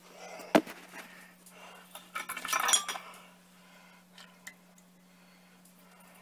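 Metal fork and dishes clinking in a kitchen. There is a sharp click about half a second in, then a short clatter with a little ringing around two to three seconds in, and after that only a couple of faint ticks.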